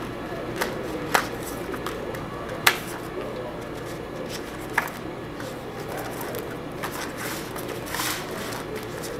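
Cut strips of printed graphic sheet being gathered by hand off a conveyor belt: the sheets rustle and flap, with a few sharp snaps, the loudest about two and a half seconds in. A steady low hum runs underneath.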